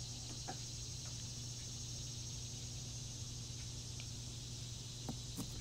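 Cicada and night-insect chorus added as a sound track: a steady high-pitched trilling over a low steady hum, with a few faint ticks.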